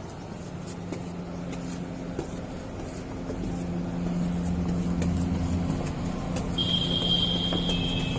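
Car on the move: a steady engine hum with road noise, growing a little louder partway through. Near the end a high steady tone comes in over it.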